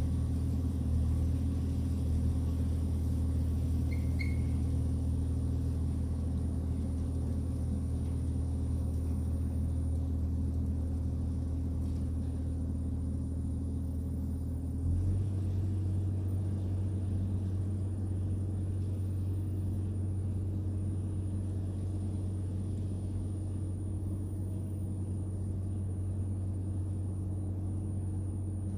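Diesel engine of heavy land-clearing equipment running steadily, its pitch stepping up slightly about halfway through.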